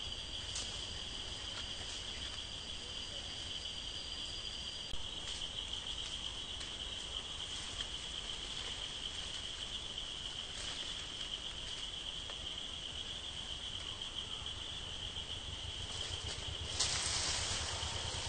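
Forest insects trilling in a steady high-pitched drone, with a few faint clicks and a short, louder burst of noise near the end.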